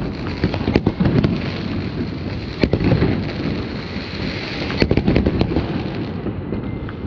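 Aerial fireworks going off: sharp bangs about a second in and near three seconds, and a quick run of bangs around five seconds, over a steady low rumble of more fireworks.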